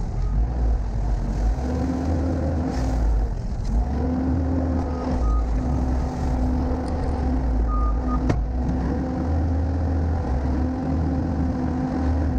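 Skid steer diesel engine running under the operator's seat, engine speed rising and easing as the machine drives and turns.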